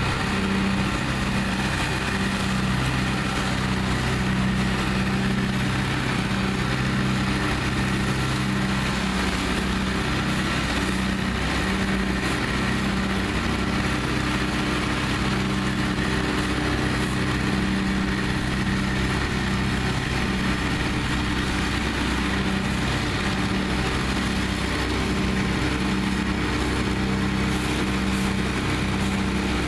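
Truck-mounted leaf vacuum running steadily, its engine-driven fan drawing air and leaves up a large hose: a constant engine hum under an even rushing hiss.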